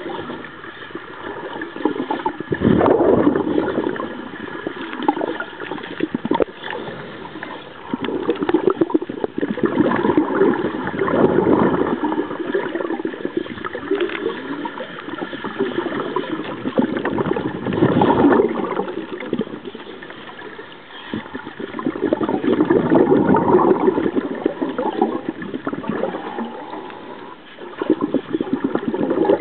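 Underwater bubbling and gurgling from a cage diver's exhaled air, surging about every six or seven seconds over steady water noise.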